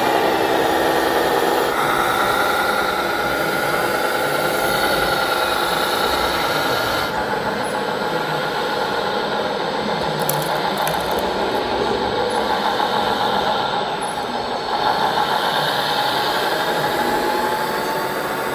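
Radio-controlled model machinery running: a steady whine of small motors and gears over a rattling mechanical noise. The whine changes pitch abruptly a few times.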